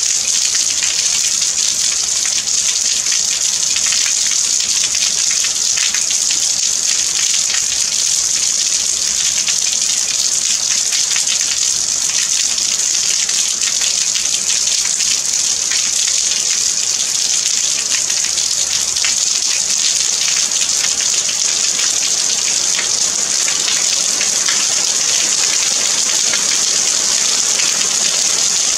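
Steady, heavy rain falling: an even, hissy wash of sound with the fine patter of countless drops running through it.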